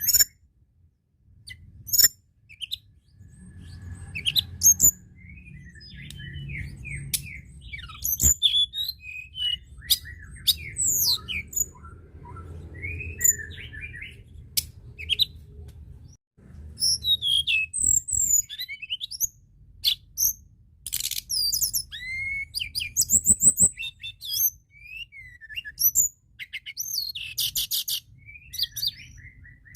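Tledekan gunung songbird singing a busy, varied string of short chirps and whistles with sharp clicks, and a fast trill near the end. A low rumble runs under much of it.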